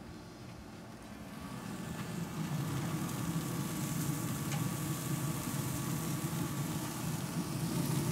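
Pellet grill running hot, a steady low rumble from its fan and fire that grows louder over the first couple of seconds. Metal tongs click faintly against the grate about four and a half seconds in.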